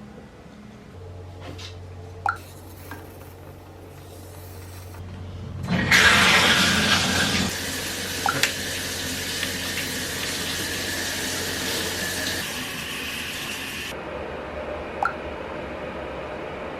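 Water running hard from a tap, switched on suddenly about six seconds in and shut off about eight seconds later, over a steady low hum, with a few light clinks of dishes.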